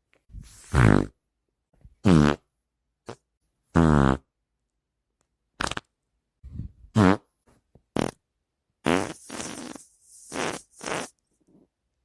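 Human farts: a string of about ten separate short farts with brief silences between them, some with a clear buzzing pitch, the later ones raspier and noisier.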